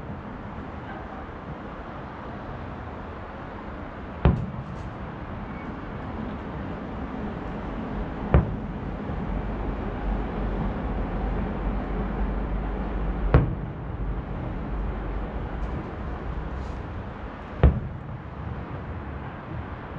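Distant aerial firework shells bursting: four sharp booms, roughly four to five seconds apart, over a steady background hum of the city.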